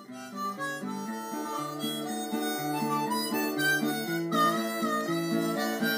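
Intro theme music led by a harmonica playing a melody over sustained chords.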